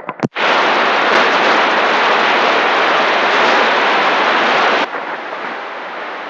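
Loud, steady CB radio static hiss with no one transmitting, broken by a few quick dropouts at the start as the last signal drops. About five seconds in it steps down abruptly to a quieter hiss.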